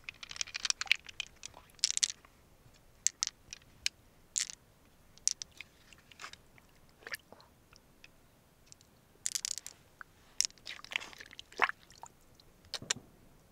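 Irregular crisp crunches and clicks of a mussel shell being worked open and scraped, in short runs with single clicks between.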